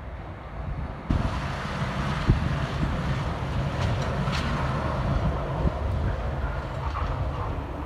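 Snowplow truck going by on a snowy street: a heavy engine rumble that gets suddenly louder about a second in, with a single thump, and wind on the microphone.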